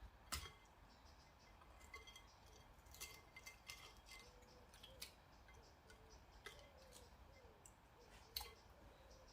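Near silence with faint, scattered small clicks and light clinks, like objects being handled and set down, over a low steady background hum.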